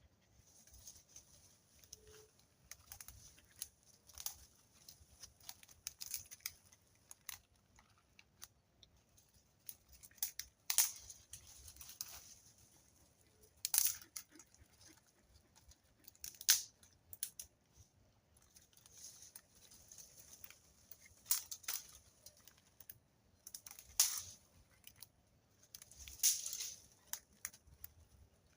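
Irregular rustling and crackling with sharp snaps, a louder snap every second or two, over a faint steady high hiss.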